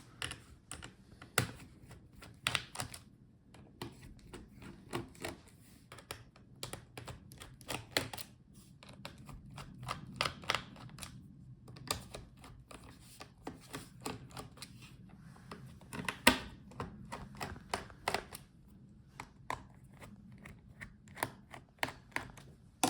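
Irregular small clicks and taps of a screwdriver working the bottom-case screws of a Dell Latitude 7410 laptop, the tool knocking against the screws and the case.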